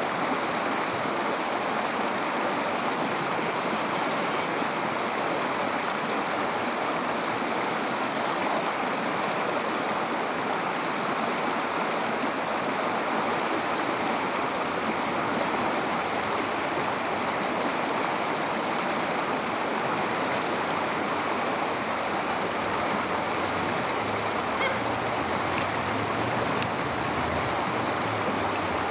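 River water rushing steadily over a rocky bed.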